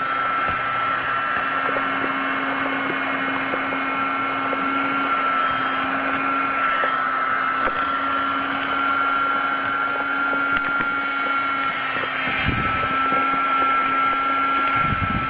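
Mini USB vacuum cleaner's small electric motor running steadily with a high whine that wavers slightly in pitch. There are a couple of low bumps near the end.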